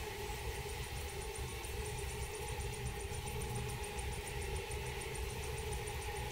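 A steady low droning hum, with a faint, fast, even ticking high above it from about half a second in.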